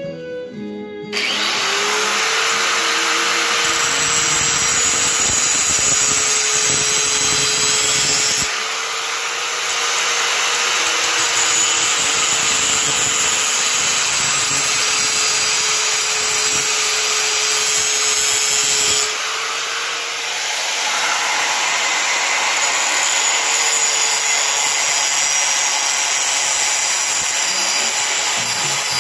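Skil angle grinder switched on about a second in, its motor spinning up to a steady whine, then grinding the steel edge of a splitting maul with a harsh hiss. The grinding noise eases briefly twice.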